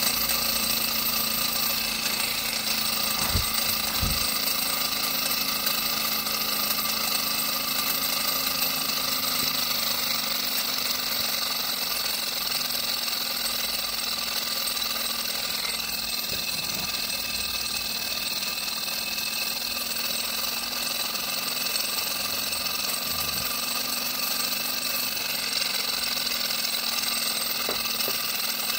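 Small model Stirling engine running steadily on the heat of a tea light, its piston and flywheel working with a continuous mechanical rattle.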